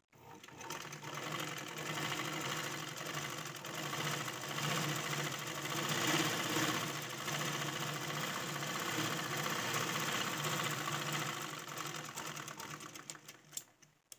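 Domestic sewing machine running continuously as it stitches a seam through fabric. It gathers speed at the start, runs steadily, and slows to a stop near the end.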